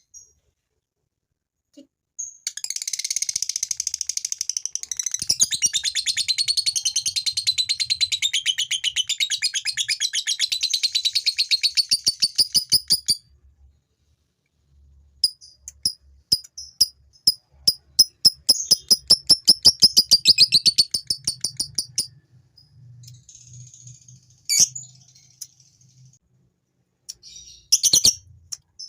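Male lovebird giving ngekek, the long, rapid chattering trill prized in fighter lovebirds, used to stir other lovebirds into chattering. One run lasts about ten seconds, a second follows after a short pause, then a few short sharp calls near the end.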